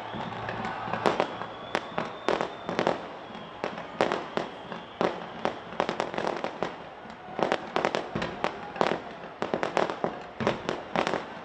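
A fireworks display going off: a fast, irregular run of sharp bangs and cracks, thinning out briefly about seven seconds in before growing dense again.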